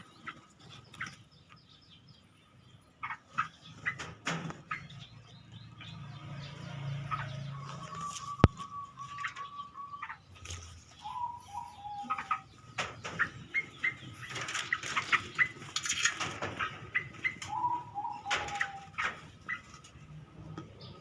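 Irregular rustling and clicking, with a few short bird calls: one held, slightly warbling note about eight seconds in, and two short falling calls later on.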